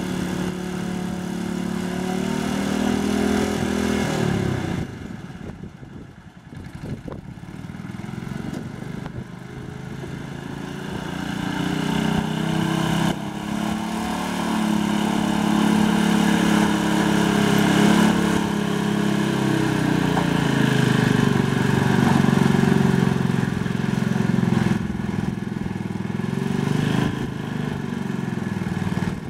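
Sears 600 garden tractor's small engine running as the tractor pushes dirt with its front blade, the engine note rising and falling. It drops away for a couple of seconds about five seconds in, then builds back up.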